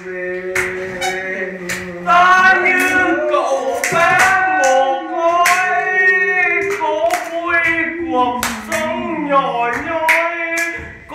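A man singing a Vietnamese song unaccompanied, holding long notes, while listeners clap along in a steady beat.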